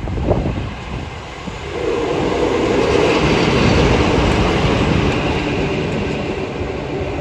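Class 47 diesel-electric locomotive, with its Sulzer V12 engine, running light engine past at close range. The engine and wheels on the rails grow louder about two seconds in as it draws level, then ease off slightly as it passes.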